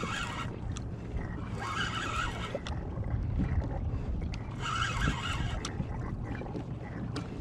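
Water washing and slapping against a kayak hull in swells about every three seconds, over a steady low rumble of wind and sea, with a few faint ticks.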